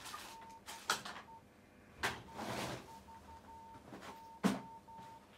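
A steady high electronic beep that keeps cutting in and out at irregular intervals, with a few sharp clicks and knocks from handling on the workbench; the loudest click comes about four and a half seconds in.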